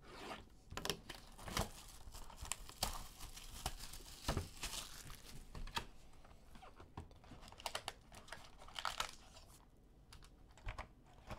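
Cardboard trading-card hobby box being opened by hand: scattered tearing, paper and foil rustling and light cardboard clicks as the lid comes up and the wrapped packs are slid out. Faint and intermittent.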